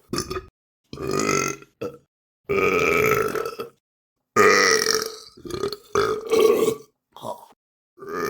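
A rapid series of separate human burps, about nine, short and long, with silence between each; the longest last about a second.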